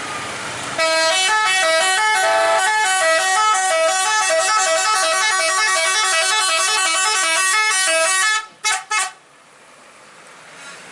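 Indonesian 'telolet' musical air horn on a tour bus, playing a quick tune of changing notes for about seven seconds. It ends with two short toots.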